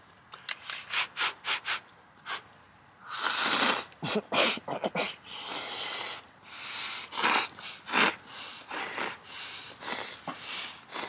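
A person slurping hot instant ramen noodles with chopsticks, in a series of short noisy slurps; the longest comes about three seconds in, and two sharp ones come near seven and eight seconds.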